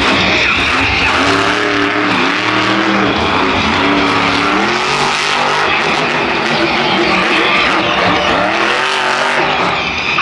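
Monster truck's supercharged V8 engine revving hard, its pitch rising and falling again and again as the throttle is worked.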